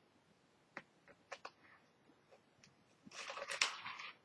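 Faint handling of Bible pages while looking for a passage: a few light ticks, then a rustle of paper being turned about three seconds in.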